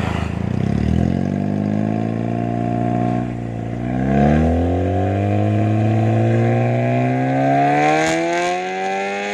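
Honda Brio's 1.2-litre four-cylinder engine through an aftermarket NDK full exhaust system (downpipe, front pipe, loop resonator, DK 01 v2 muffler), free-revved while standing still: loud, the revs ease back and hold steady for a few seconds, then rise about four seconds in and are held high, climbing slowly toward the end.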